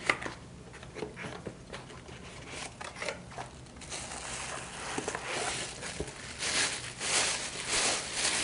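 Packaging being handled during an unboxing: crinkling and rustling with small clicks and knocks, busier and louder from about four seconds in.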